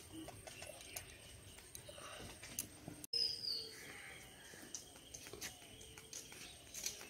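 Faint outdoor ambience with birds calling: a short high chirp sliding down in pitch just after three seconds in, among scattered light clicks.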